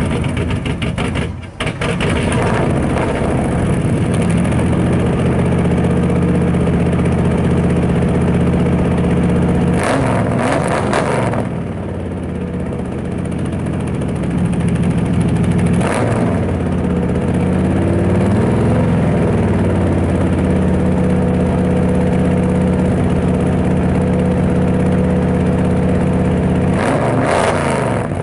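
Small-block Chevy V8 running at a fast idle on its first start with a new carburetor, its speed dipping and picking back up briefly a few times. Idling way high, which the owner puts down to the choke being set too rich from the factory.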